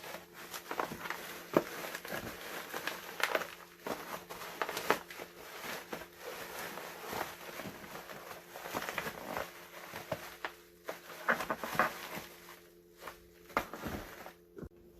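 Unpacking a box of portal-box brackets: irregular rustling of packaging with many small clicks and light knocks as parts are handled, over a faint steady hum.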